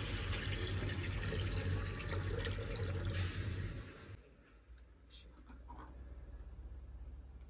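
Water running or pouring steadily for about four seconds, then stopping, followed by a few faint clicks.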